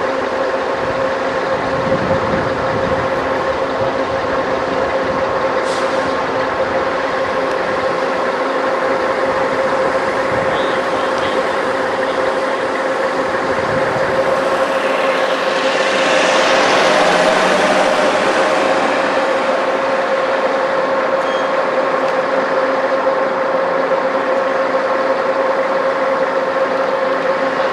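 Heavy military vehicles running: a steady engine and road noise with a constant hum, growing louder for a few seconds about halfway through as it swells and fades.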